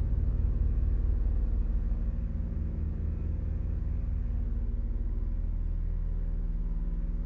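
Low electronic drone: many steady low tones layered over a fast pulsing throb in the bass, the higher layers fading away about halfway through.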